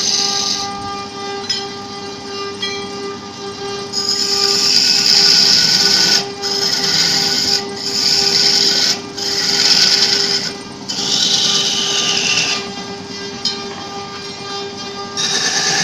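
Electric wood lathe running with a steady hum while a hand-held turning chisel cuts a spinning wooden baluster. Each pass throws a loud hiss of shavings, about five cuts in a row from about four seconds in, easing off near the end.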